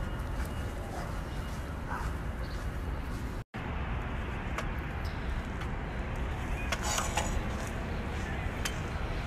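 Outdoor background noise: a steady low rumble with faint scattered ticks, cut off completely for a split second about a third of the way through.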